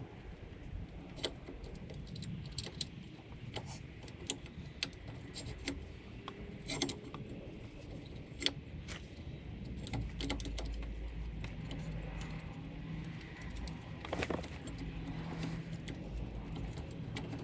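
Irregular metallic clinks and taps of tools and brake hardware being handled while fitting new brake pads. A low steady hum sits underneath, stronger from about halfway through.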